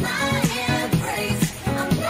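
Background pop music with a steady beat.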